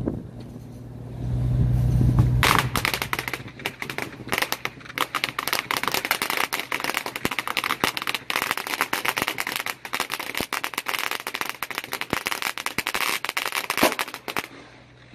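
Fireworks crackling: a dense run of sharp pops lasting about twelve seconds, starting a couple of seconds in and stopping abruptly near the end. A low engine hum comes before the crackling starts.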